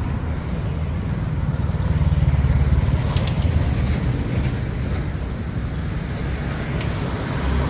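Road traffic: a steady low rumble of passing vehicles, loudest about two to three seconds in, with a few faint clicks.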